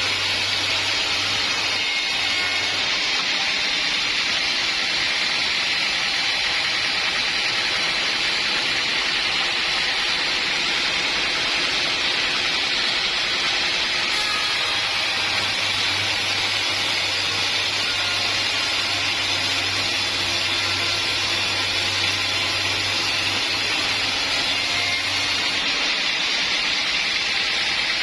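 A sawmill saw runs with a loud, even, steady noise, as when sawing through acacia logs. A low hum underneath comes and goes.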